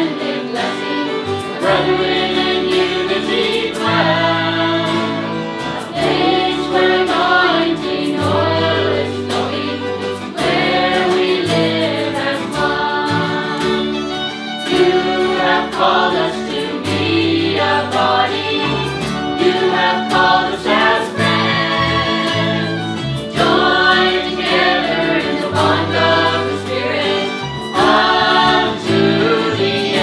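Christian worship song sung by a group of voices together, with acoustic guitar, violin, electric bass, electric guitar and cajon playing along.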